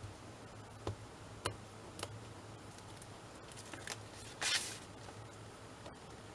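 Paper and card being handled on a tabletop: a few light taps about one, one and a half and two seconds in, then a short papery rustle about four and a half seconds in, over a faint low hum.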